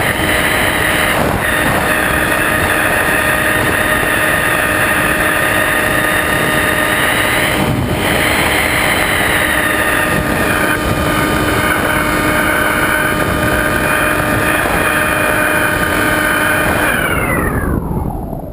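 Electric motor and propeller of a Multiplex EasyStar RC glider running steadily under power, heard from a camera on the airframe with air rushing past. Near the end the motor is throttled back and its whine falls steeply in pitch.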